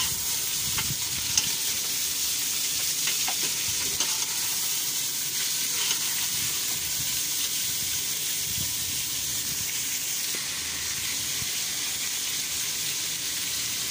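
Raw beef pieces and fried onions sizzling steadily in an aluminium pressure cooker, browned until the meat changes colour. A metal ladle stirs them, with a few faint scrapes and taps against the pot.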